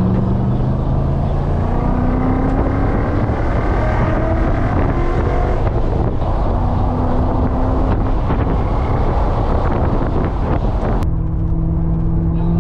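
BMW E39 M5 wagon's engine pulling under acceleration, heard from inside the cabin over steady road and wind noise, its note rising over the first few seconds. About eleven seconds in the sound changes abruptly to a steadier cruise.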